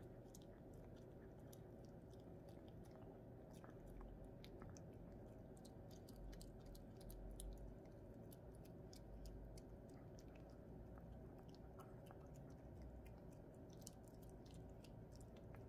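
Pomeranian puppy chewing a treat: faint, irregular small clicks and crunches.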